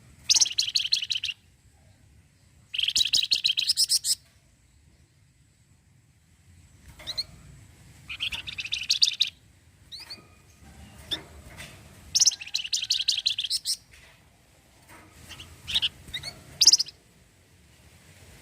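Flamboyan (wergan jawa) songbird singing its rattling 'ncretet' song: four fast, dry rattling trills of about a second each, the first right at the start and the last a little past the middle, with short high rising whistled notes between them.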